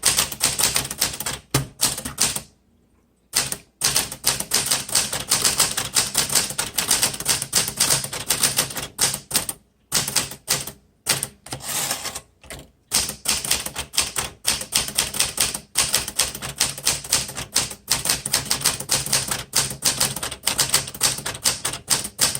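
Smith Corona Galaxie manual typewriter being typed on at a quick, steady pace: a rapid run of sharp key and typebar strikes against the platen, broken by a few short pauses, one about two and a half seconds in.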